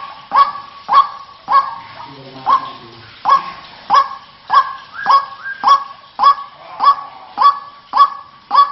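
White-breasted waterhen giving its harsh, repeated 'kruak' call in a steady run of about two calls a second, with a short break and a faint low sound about two seconds in.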